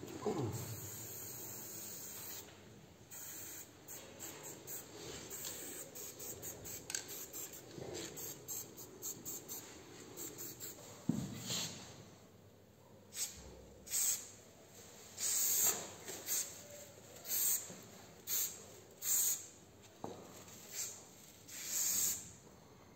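Aerosol spray paint can hissing in short bursts: a run of quick, short sprays, then from about halfway a string of separate hisses about a second apart.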